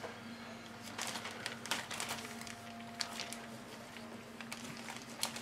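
Plastic model-kit sprues being handled and slipped into a plastic bag: faint rustling with scattered light clicks of plastic, over a steady low hum.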